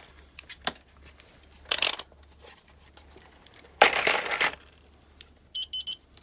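Digital multimeter and its test leads being handled and set down on a workbench: a few small clicks and two short clattering rattles, the second the loudest. Near the end the meter's continuity tester gives a quick string of short, high beeps.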